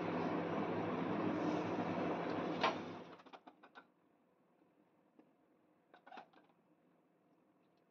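A steady whirring noise with a low hum, with a sharp click just before it cuts off about three seconds in. Then a few soft taps and clicks, the loudest around six seconds in, as masala is spooned onto a banana leaf.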